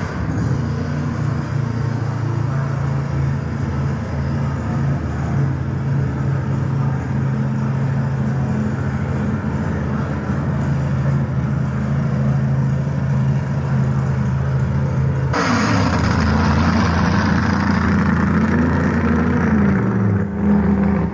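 Car engine and road noise at a steady cruise. About fifteen seconds in, the sound changes abruptly and an engine note rises and then falls.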